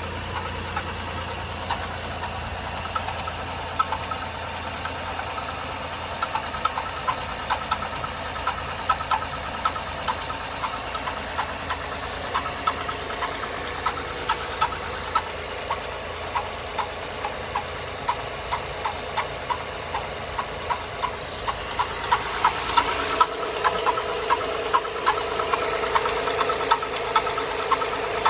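2011 Acura TL SH-AWD's 3.7-litre V6 idling with a regular, even tapping from the engine, a noise the dealership could not diagnose. About three-quarters of the way through, the engine sound gets louder with an added steady hum, and the tapping carries on.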